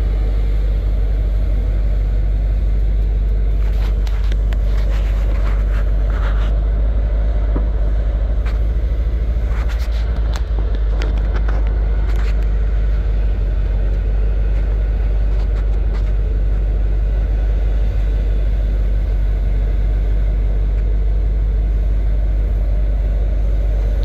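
Heavy engines idling with a steady low rumble as an excavator loads a dump truck, with brief clattering from the bucket and dirt a few seconds in and again about halfway through.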